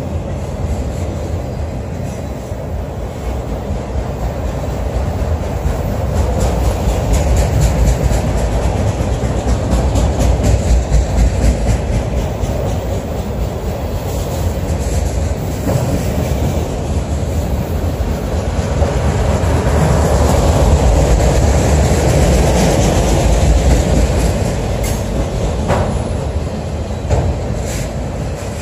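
Freight train of autorack cars rolling past close by: a steady rumble of steel wheels on rail, with frequent clicking and clanking from the passing cars.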